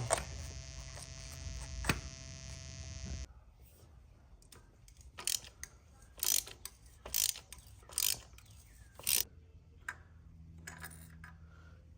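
Ratchet wrench working in short strokes, about six of them roughly a second apart, loosening a spark plug from the engine. Before that, a steady hum with a couple of clicks cuts off suddenly about three seconds in.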